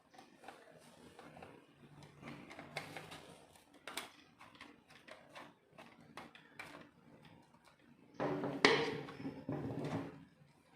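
Light clicks and taps of a screwdriver and small plastic and metal parts while screws are taken out of a car instrument cluster, with one sharper click about four seconds in. A louder stretch of handling noise comes about eight seconds in and lasts about two seconds.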